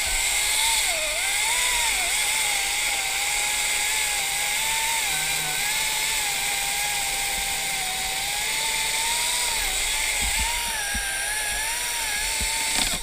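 Chainsaw running at high revs while cutting through the tree, its pitch wavering and dipping briefly under load; it stops abruptly at the very end.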